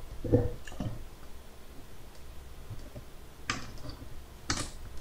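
A handful of short plastic clicks and knocks, the loudest about a third of a second in, from hands working inside an opened Dell Latitude D630 laptop, pulling the Wi-Fi antenna cables out of their routing channels.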